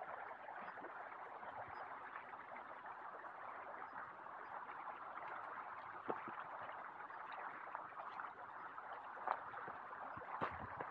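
Stream water running, a steady rushing, with a few faint clicks about six, nine and ten and a half seconds in.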